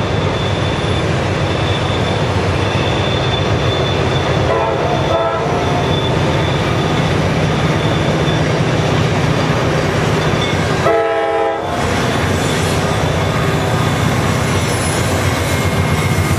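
Sound-equipped HO-scale model diesel locomotive playing its sound-decoder effects through its small speaker: a steady diesel engine rumble with two short horn blasts, a fainter one about four and a half seconds in and a louder one about eleven seconds in.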